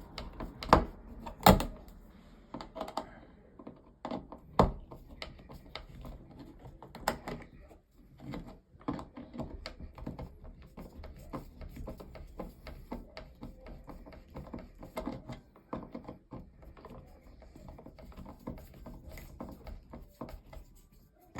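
Clicks, taps and knocks of car dashboard parts being handled and fitted by hand during the switch replacement. There are two louder knocks in the first two seconds and another at about four and a half seconds.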